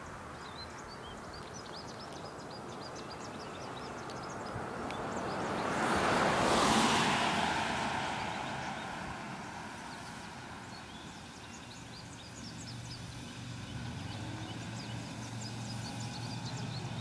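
A car passing close by on the road, its tyre and engine noise swelling to a peak about six to seven seconds in and then fading away. From about twelve seconds a small motorbike engine drones steadily, growing louder as it approaches, while birds chirp throughout.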